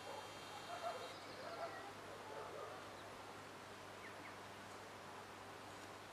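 Quiet outdoor ambience: a few soft, short animal calls in the first second or two, the loudest about a second in, then only a faint steady hiss.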